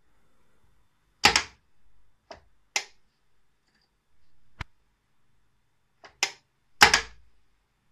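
Sharp metallic clacks and clicks from a semi-automatic nameplate embossing machine as its carriage handle and stamping head are worked by hand: six separate clacks, the loudest about a second in and just before the end.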